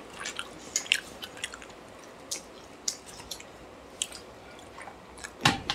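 Close-miked chewing and wet mouth sounds of people eating curry and rice by hand: scattered small clicks and squishes, with a sharper sound near the end.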